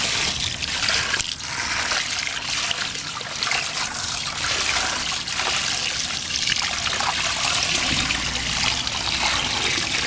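Water from a garden hose running steadily into a plastic bucket partly filled with water, rinsing filter cleaner out of a foam dirt-bike air filter.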